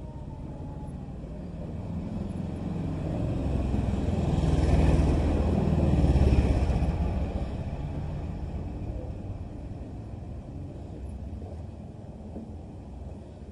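Motorbikes riding past at close range: an engine rumble that swells, is loudest about five to six seconds in, and fades away again.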